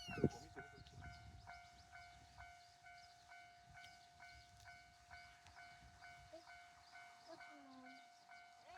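Japanese railway level-crossing alarm ringing its electronic 'kan-kan' bell tones, a steady beat of about two strikes a second. A sharp knock and a low rumble come right at the start, the rumble dying away within about two seconds.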